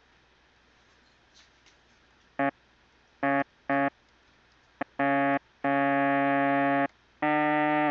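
Harmor synthesizer playing back a resynthesized trombone sample: after a quiet stretch, a run of brief notes starts about two and a half seconds in, followed by longer held notes at the same low pitch.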